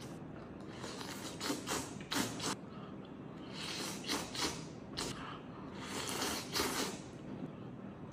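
A person slurping and eating scissor-cut noodles in soup from a bowl held to the mouth: a series of irregular slurps and mouth noises.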